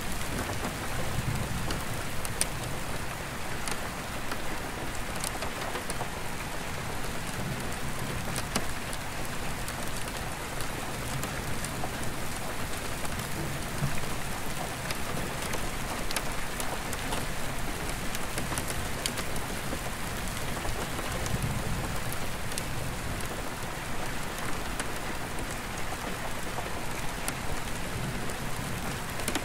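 Steady rain on an attic skylight, with individual drops ticking sharply on the glass. Low rumbles of distant thunder come and go several times underneath.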